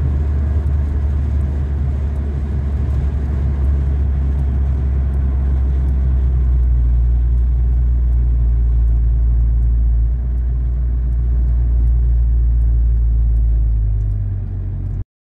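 Car in motion heard from inside the cabin: a steady low road and engine rumble that cuts off suddenly near the end.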